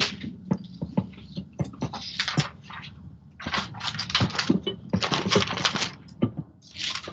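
Irregular clatter of sharp clicks, scrapes and rustling bursts, coming in uneven clusters with short gaps, as in a home-made foley sound collage.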